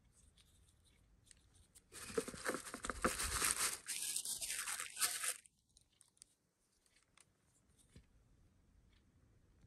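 Paper packaging rustling and scraping for about three and a half seconds as a hand digs into shredded paper filler and pulls a lipstick from its cardboard insert. After that only a few faint clicks.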